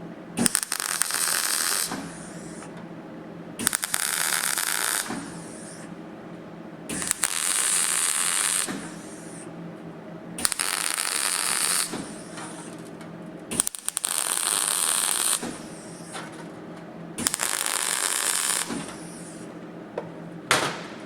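MIG welder laying a row of tack welds on the steel sill panel: six crackling bursts of about a second and a half each, every three seconds or so, each starting with a sharp arc strike, over a steady low hum. The tacks pin the panel in place to tie down its shape.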